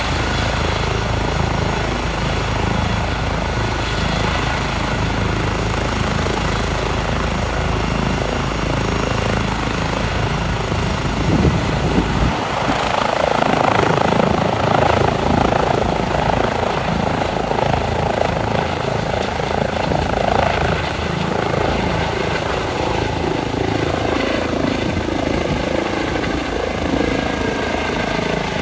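Airbus EC135 twin-turbine rescue helicopter running at takeoff power, a steady loud rotor and turbine noise that swells about halfway through and eases off toward the end.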